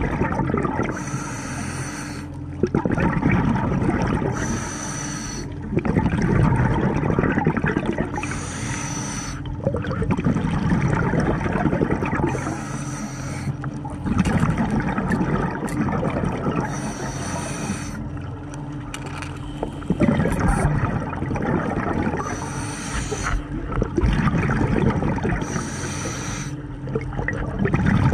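Scuba diver breathing through a regulator underwater: a hiss on each inhale, then a louder rush and rumble of exhaled bubbles, repeating about every four seconds.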